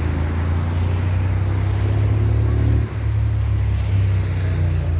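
An engine running steadily, a low hum with a brief dip about three seconds in.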